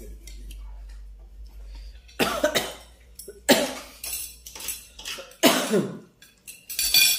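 A person coughing four times, the coughs a second or two apart.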